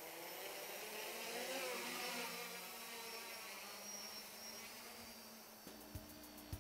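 Multirotor's brushless outrunner motors buzzing in flight over a haze of wind noise, their pitch rising and then falling about one to two seconds in. Music with drum hits comes in near the end.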